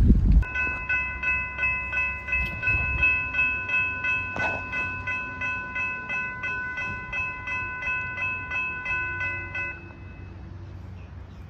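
A railroad bell ringing in steady, even strokes, about two a second, then stopping near the end. Just before it starts, a low rumble cuts off, and there is one knock midway.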